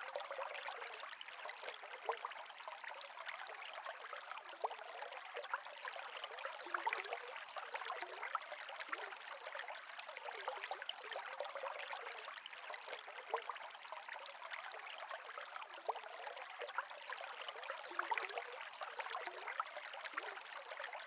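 Saltwater aquarium water circulating: a steady trickling, bubbling hiss with many small crackles.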